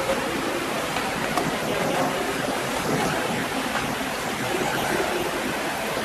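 Steady rushing background noise with a few faint knocks.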